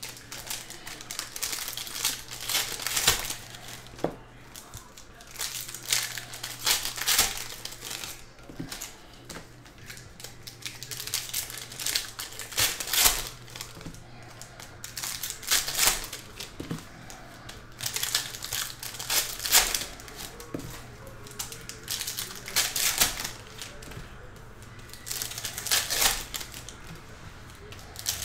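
Shiny trading-card pack wrappers crinkling and tearing as Panini Certified Football packs are opened and the cards handled, in repeated bursts of a second or two with short pauses between them.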